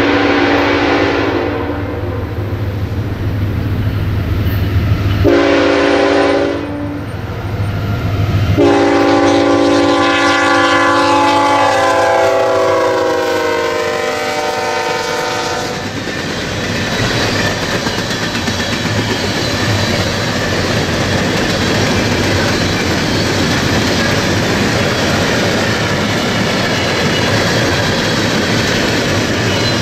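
CSX freight train's diesel locomotive blowing its multi-chime air horn as it approaches and passes, with a low engine rumble underneath. One blast ends about a second in, a short blast comes about five seconds in, and a long blast starts near nine seconds and drops in pitch as the locomotive goes by. From about sixteen seconds on, the freight cars roll past with a steady clickety-clack of wheels on rail joints.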